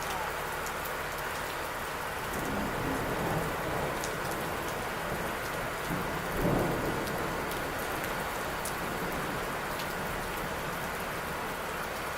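Steady heavy rain with drops ticking close by, and thunder rumbling twice, the second and louder rumble about halfway through.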